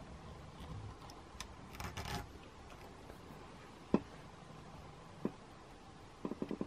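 Faint handling noise of stiff stainless steel wire being wrapped around a rubber garden hose by hand, with rubbing and scraping. There is a sharp click about four seconds in, another about a second later, and a few small clicks near the end.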